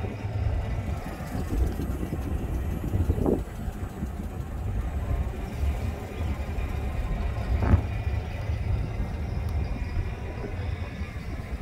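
Vehicle moving slowly: a steady low engine and road rumble, with two brief knocks, about three seconds in and, louder, near eight seconds.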